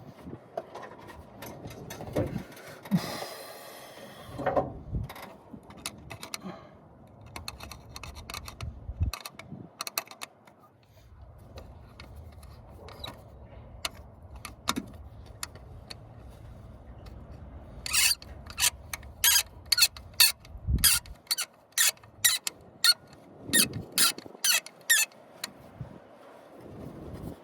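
Hand tools and metal parts being worked by hand on a choke cable. There is a squeaky rubbing stretch about three seconds in, scattered clicks, and from about eighteen seconds a run of sharp, loud clicks, roughly two a second.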